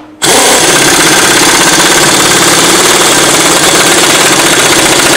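Pneumatic impact wrench hammering steadily in a fast, even rhythm on the centre bolt of a flywheel puller, forcing the generator rotor off the crankshaft. It starts about a quarter second in and stops near the end.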